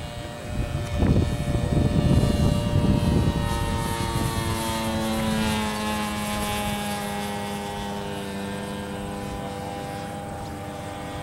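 Small propeller plane's engine droning as it flies past, its pitch falling as it goes by, then holding steady as it moves away. A loud low rushing noise comes in the first few seconds.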